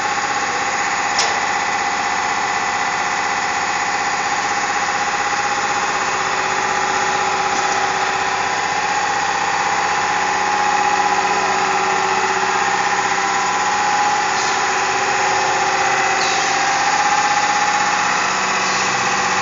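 Pocket spring assembling machine running steadily, a mechanical whine with several held tones and a few faint ticks.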